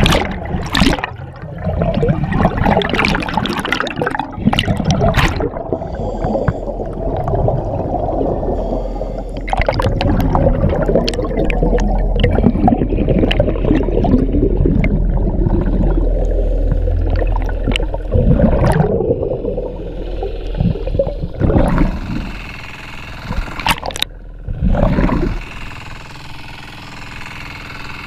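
Water sloshing and gurgling close against the microphone, with bubbling and scattered sharp clicks. Two hissier rushes of water come near the end.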